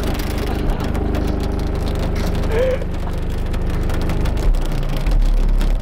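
Deep bass music from Fi Q 15-inch car subwoofers driven by a Sundown SAZ-1500D amplifier, low notes changing every second or so, with a crackling noise over it. Near the end one very low note holds for about a second.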